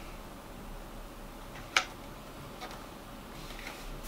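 A metal lever-action CO2 rifle being handled: one sharp click a little under two seconds in, then a few faint ticks.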